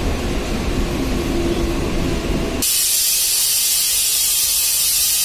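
Mumbai suburban local train running, a steady rumble. About halfway through, the rumble cuts off abruptly and a steady high hiss takes over.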